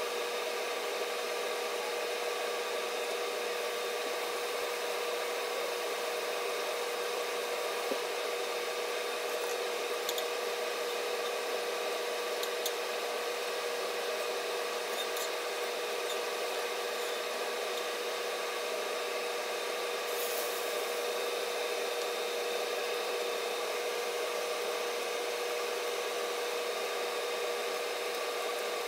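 A steady whirring hiss with a constant hum, like a running fan, unchanged throughout, with a few faint clicks about ten to twenty seconds in.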